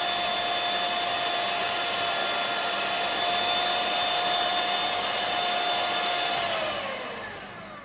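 Handheld electric mixer running steadily with a constant whine as its beaters whip matcha powder, sugar and hot water into dalgona foam. About six and a half seconds in it is switched off, and its whine falls in pitch as it winds down.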